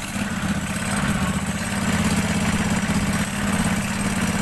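Homemade snowmobile's engine running steadily under light throttle as the machine moves off slowly through deep, loose snow.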